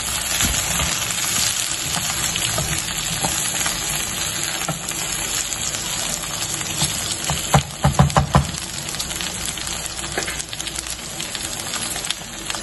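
Okra and onions sizzling in hot oil in a stainless steel pan as a wooden spatula stirs them. About two-thirds of the way in there is a quick run of knocks, the loudest part, as the spatula strikes the pan.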